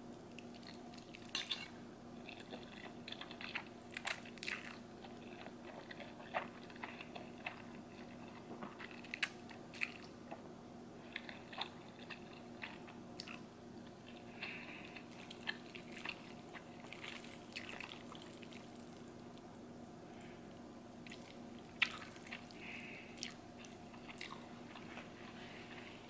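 Close-up eating sounds of a person chewing and slurping black bean noodles, wet mouth noises broken by many short sharp smacks and clicks. A steady low hum runs underneath.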